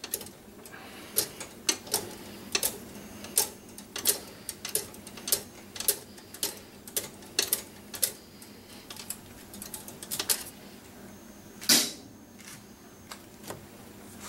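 Hand ratchet wrench clicking as a threaded part is backed out. There is a sharp click every half second or so, with one louder clack near the end.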